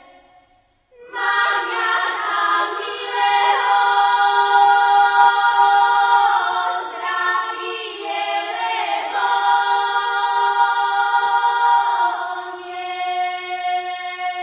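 Unaccompanied group of high, women's voices singing a Slovak trávnica folk song in held, full-voiced notes. The singing comes in about a second in, after a brief pause, and the phrases end with falling slides in pitch.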